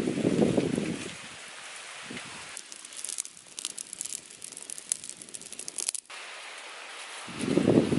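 A person blowing into the embers of a small twig fire, a rush of breath at the start. The burning twigs then crackle with quick sharp pops for a few seconds, cutting off suddenly about six seconds in. Another rush of air builds near the end.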